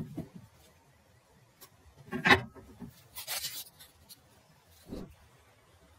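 A garlic bulb being broken apart by hand, its papery skins crackling and rustling, with a few short knocks on a wooden cutting board.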